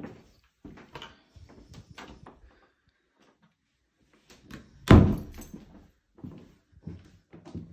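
Footsteps on a laminate floor, then a cupboard door pushed shut with one loud thud about five seconds in, followed by more footsteps.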